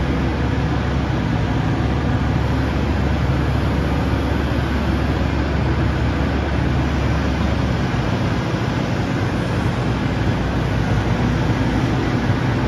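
Hitachi ZX135 tracked excavator's diesel engine running steadily; its deepest rumble eases about eight seconds in.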